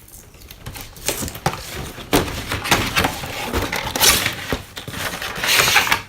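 A toy's cardboard and plastic packaging being opened by hand: an irregular run of rustling, scraping and sharp clicks, loudest around the middle and near the end.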